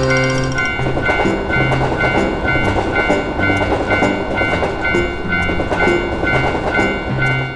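A train running past with a steady rushing clatter while a railroad crossing bell dings about three times a second, over background music with a moving bass line.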